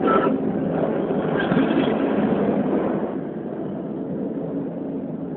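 Crowd noise and scattered shouts in a large echoing hall during a lucha libre wrestling match, with a sharp knock right at the start. It is louder for about the first three seconds, then settles to a steadier murmur.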